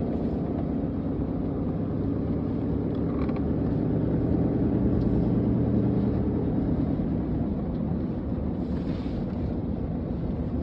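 Steady engine and road noise of a moving vehicle, a low hum that swells slightly midway and then eases.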